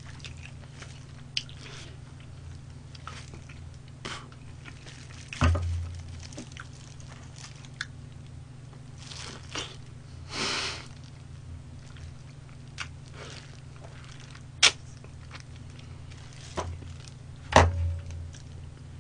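Close-up chewing and soft crunching of fried chicken, with scattered small mouth clicks over a steady low hum. Two dull thumps stand out, about five seconds in and near the end.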